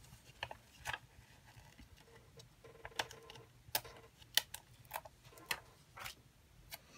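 Light clicks and taps of small scrapbooking embellishments and their packaging being handled on the craft table, about nine in all and coming faster and more evenly in the second half.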